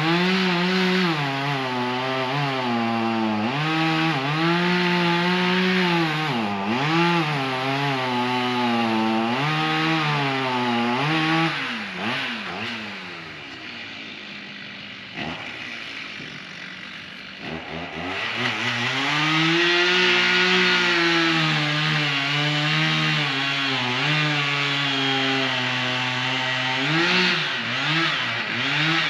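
An engine running and revving up and down over and over. It eases off for a few seconds in the middle, then picks up again.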